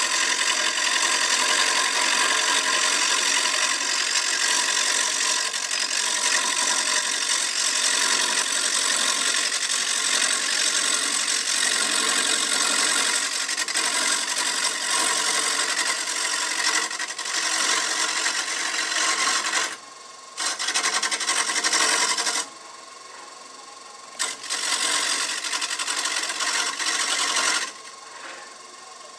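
Turning chisel cutting a spinning wooden cylinder on a wood lathe: a steady rasping hiss from the cut. It breaks off briefly about 20 and 23 seconds in and stops a little before the end, leaving only the quieter running of the lathe.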